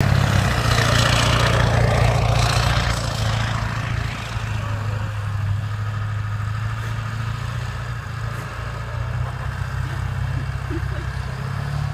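Ford F-350's 7.3-litre Power Stroke V8 turbodiesel running as the truck slides around on snow: a steady low engine note, loudest for the first three seconds with a rushing noise on top, then fainter as the truck moves away.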